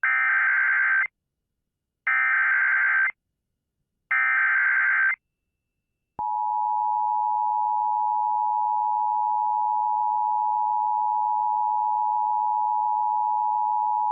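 Emergency Alert System activation tones: three one-second bursts of the SAME digital header, each a harsh buzzing data screech, with about a second of silence between them, encoding a severe thunderstorm warning for relay to other stations. About six seconds in, the steady two-tone EAS attention signal starts and holds.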